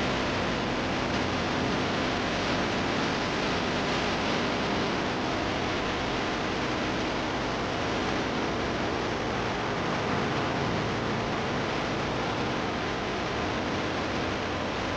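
Mountain torrent rushing over boulders: a steady, unbroken noise of white water.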